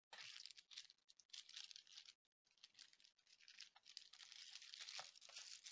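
Packaging being handled: an irregular run of crinkling and rustling, with a brief pause about two seconds in.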